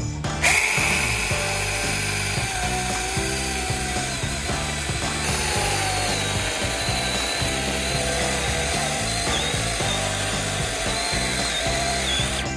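Makita-compatible cordless mini chainsaw starting up about half a second in and cutting through a tree root, the chain rasping through the wood while the motor's whine wavers up and down as the load changes.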